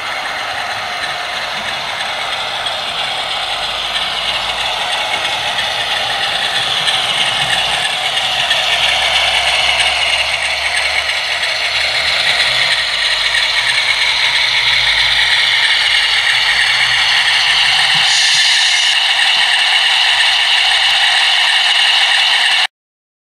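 OO gauge model Class 47 diesel locomotive and its coaches running along the track towards the microphone: a steady mechanical rattle and whir of the model's wheels and drive that grows louder as it approaches, then cuts off suddenly near the end.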